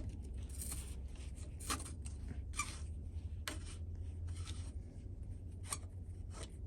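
Scattered small clicks and scrapes of a tool loosening the bolts on a bicycle's cable-operated disc-brake caliper.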